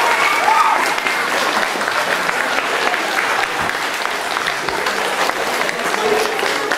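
Audience applauding steadily, with a few voices calling out about half a second in.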